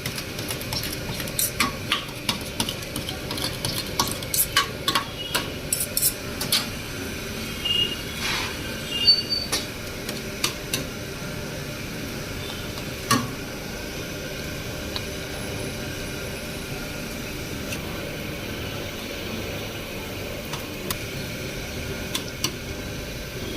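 Metal cooking utensils clinking and scraping at a food stall: a run of sharp clinks through the first half, then only a few, over steady background noise.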